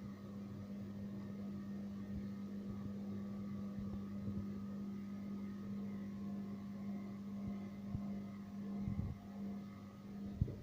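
Gafa 6500 front-loading washing machine running its spin cycle: a steady hum with a few dull knocks late on and one sharper knock near the end. This is the abnormal spin noise the owner is reporting.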